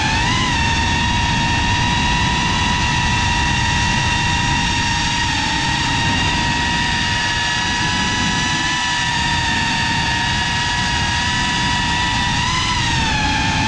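FPV cinewhoop drone's motors and propellers, recorded on board, giving a steady high whine over a rough low rumble. The pitch swoops briefly with throttle changes just after the start and again about 12 seconds in.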